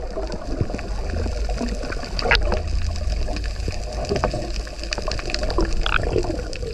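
Water heard from underwater: a steady low hum with faint gurgles and scattered small clicks.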